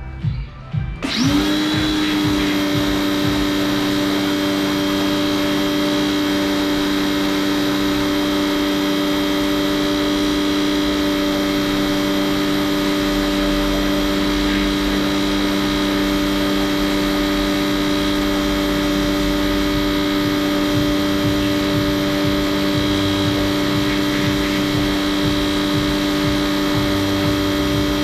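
A small electric motor spins up about a second in, rising quickly in pitch, then runs at a steady whine.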